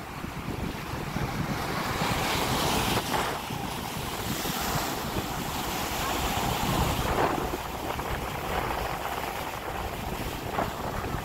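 Wind buffeting the microphone over the wash of a choppy sea. Near the end, waves break and splash against the rocks of a stone breakwater.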